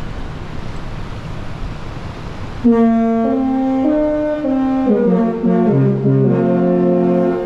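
The Disney Wish's musical ship horn playing a tune on leaving port: a run of long, deep held notes, several sounding together and stepping in pitch, starting about two and a half seconds in. Before it there is only a steady noisy rumble.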